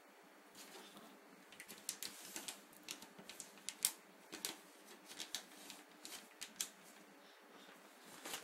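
Quiet irregular clicks and taps from a baby playing in a bathtub, at an uneven pace of a few a second, starting about half a second in and dying away near the end.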